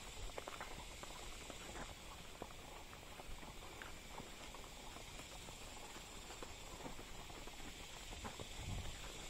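Faint, irregular patter and clicks of a horse's hooves on a leaf-strewn dirt trail, heard from the saddle, with a brief low rumble near the end.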